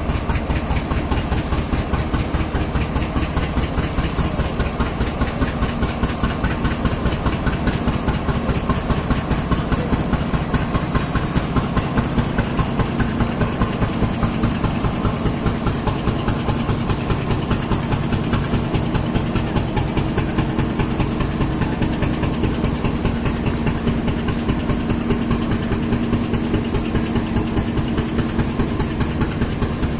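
WDG4G (GE Evolution-series) diesel-electric locomotive's engine idling with a steady, evenly repeating pulse and a constant hum. It is the unusual idling sound the locomotive is known for.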